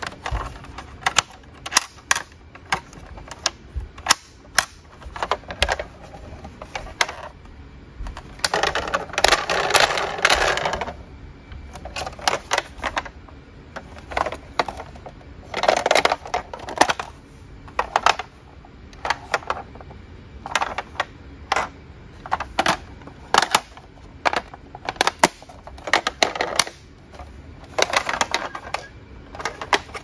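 Hard plastic toy ambulance being handled: a steady run of sharp clicks and knocks from its plastic body and hinged doors, with a longer scraping rattle about nine seconds in and a shorter one near sixteen seconds.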